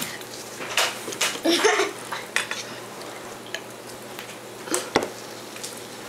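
Clatter of dishes and cutlery: scattered sharp clinks and knocks, with a short low vocal sound about a second and a half in.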